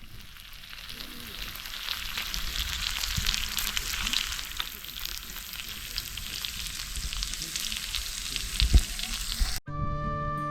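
Meat sizzling and spitting on a hot iron griddle plate over a fire pit, the sizzle building over the first few seconds, with one knock near the end before it cuts off suddenly.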